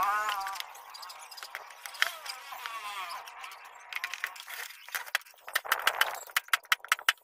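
Sharp wooden clicks and knocks of plywood pieces being handled and fitted together, in a quick irregular run from about four seconds in. A short wavering animal call is heard at the start.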